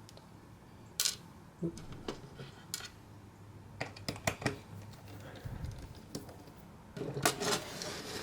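Scattered sharp clicks and light taps of small parts and tools being handled on a laptop during disassembly, with a busier cluster of clattering near the end.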